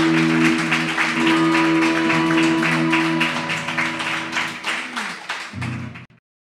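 Electric guitar and drum kit playing together: held guitar chords over fast, even strokes. The music cuts off suddenly near the end.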